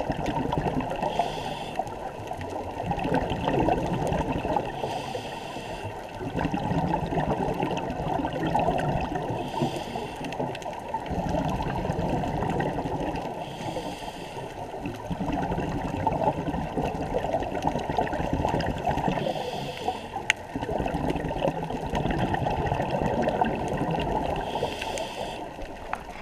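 Scuba breathing through a regulator, muffled by the underwater camera housing: about every five seconds a short hiss of inhalation, then a long bubbling rush of exhaled air, six breaths in all.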